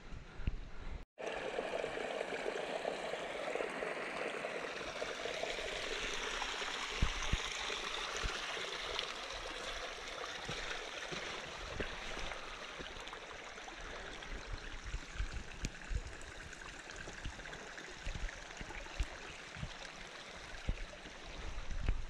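Small shallow mountain creek trickling and gurgling over rocks in a steady wash of water sound, which starts after a brief break about a second in. Occasional low thumps sound under the water noise.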